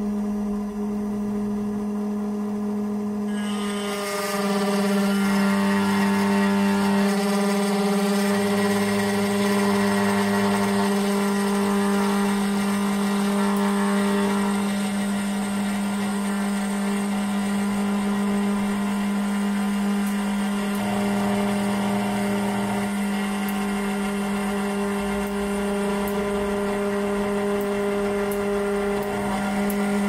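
SEC-E9 automatic key cutting machine running: a steady motor whine, joined about three seconds in by the cutter grinding into the car key blade as it cuts the first side of the key.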